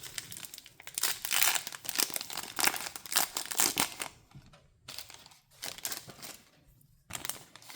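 Crinkling and rustling of a trading-card pack wrapper and cards being handled. It is busiest for the first few seconds, then quieter, with another rustle near the end.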